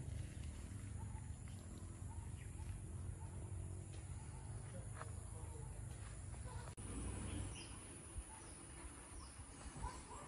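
Quiet outdoor ambience: scattered faint bird chirps over a low, steady rumble. The background changes abruptly about two-thirds of the way through.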